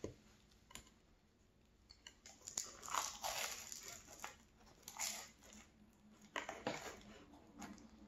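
Flaky chocolate puff-pastry twist crunching as it is bitten into and torn apart, with chewing. It is quiet at first; from about two and a half seconds in come several short crackly bursts of crunch.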